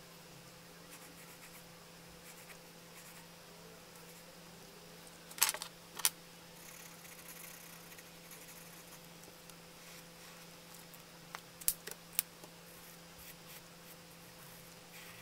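Pencil and marker tips scratching faintly on sketchbook paper over a steady low hum, broken by two sharp clicks about five seconds in and two more near twelve seconds.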